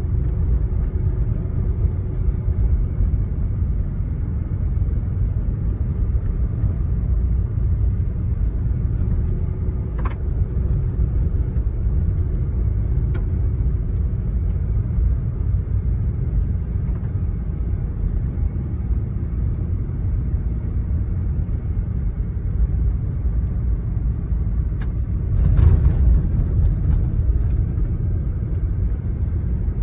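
Steady low rumble of a vehicle driving, heard from inside the cabin: engine and tyres on a snow-packed road. A few faint clicks, and a brief louder bump near the end.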